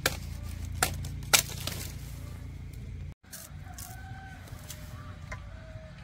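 A few sharp snaps or knocks in the first two seconds. After a cut, chickens cluck faintly a few times, in short pitched calls.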